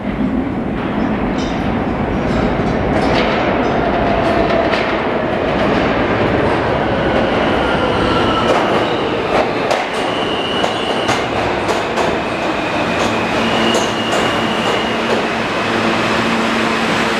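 R160A-1 subway train pulling into an underground station: a loud, steady rumble of wheels on rail with repeated clicks over the rail joints and a few brief high squeals.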